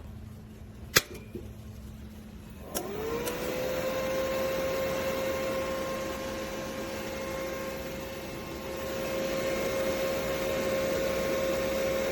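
A sharp click, then about two seconds later a motor or fan whirs up quickly to a steady pitched hum with a hiss beneath it, and keeps running.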